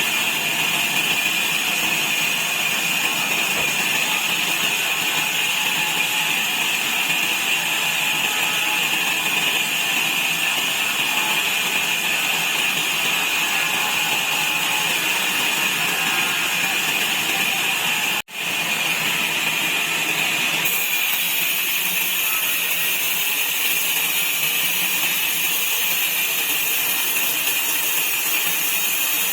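Sawmill saw running steadily as it cuts wood into slats, making an even, high-pitched hiss-like noise. It drops out for a split instant about two-thirds of the way through, then carries on with a brighter, hissier edge.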